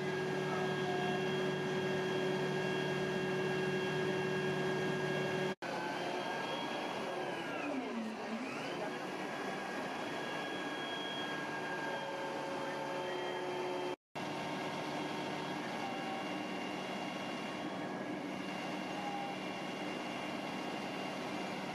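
An aerial ladder fire truck's engine and hydraulics running steadily, a mechanical hum made of several steady tones. About seven seconds in, a whining tone glides sharply down and climbs back up within two seconds. The sound cuts out for an instant twice.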